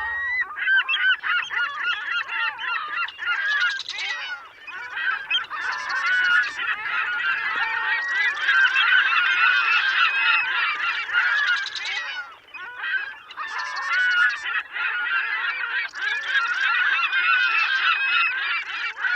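A flock of birds calling, many honking calls overlapping in a steady, dense chorus.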